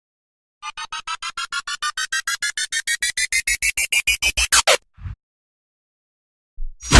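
Synthesized sound effect: a rapid train of electronic pulses, about seven a second, rising steadily in pitch and growing louder for about four seconds, then cutting off, with one short blip just after.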